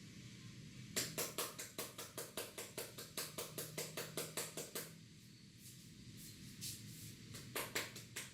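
Barber's hands tapping rhythmically on a client's head in a head massage: a quick run of sharp claps, about five a second, for about four seconds, then a few more claps near the end.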